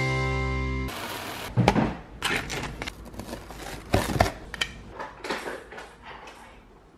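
The last chord of a jingle rings and cuts off about a second in. Then come scattered knocks and taps of a knife cutting cheese slices on arepas against a plastic cutting board, and the plate being handled.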